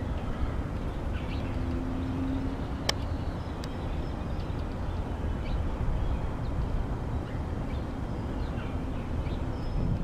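Steady low outdoor rumble, with two sharp taps about three seconds in and a few faint high chirps.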